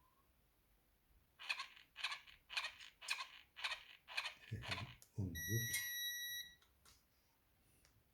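Battery-powered Air Wick spray dispenser's small motor, fed about 1.7 V from an 18650 cell through a step-down regulator, stuttering in seven short buzzes about two a second, then giving a steady high whine for about a second. It fails to spray: the supply is not enough to drive it.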